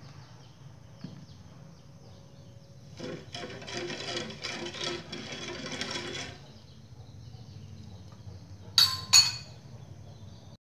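A spoon stirring sugar into coconut milk in a metal frying pan, scraping and clinking against the pan for about three seconds. Two sharp, loud clinks of the spoon on the pan follow near the end.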